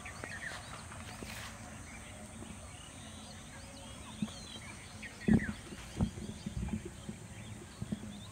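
Footsteps on a dirt path, a run of irregular soft thuds from about five seconds in, over a background of birds chirping.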